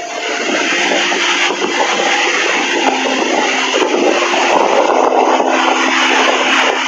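Sea surf breaking and washing up the shore: a steady rushing wash of waves. A few soft held musical notes sound faintly underneath.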